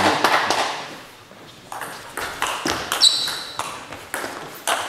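Table tennis rally: sharp clicks of the ball off the bats and the table in quick succession, starting about two seconds in, with a short high squeak about three seconds in.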